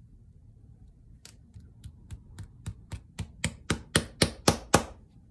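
About fourteen quick taps of a shoemaker's lasting pliers' hammer head, driving a small clenching nail through the leather upper into the shoe last. The taps come about four a second and grow steadily louder.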